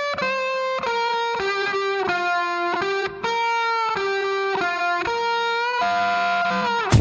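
Background music: a slow melody of sustained electric guitar notes with no drums, the beat coming back in right at the end.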